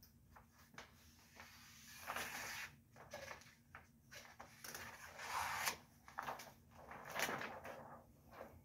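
Irregular rustling and swishing of plastic window-tint film being handled and pulled off its roll, with louder swishes about two, five and seven seconds in.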